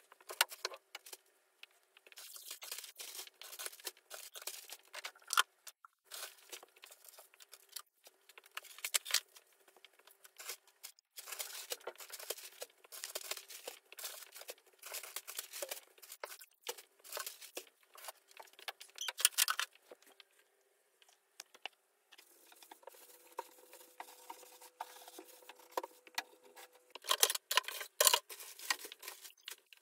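Rustling and crinkling of material being handled up close, with scattered clicks and taps and a few short pauses.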